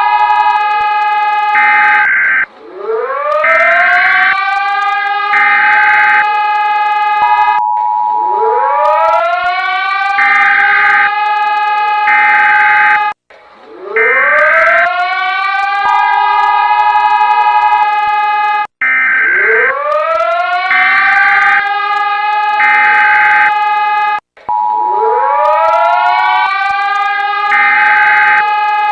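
Mock emergency-alert siren audio: a siren sound winds up in pitch and holds, then cuts off sharply and starts again about every five and a half seconds. Short two-note alert tones and pulsing higher beeps are laid over it.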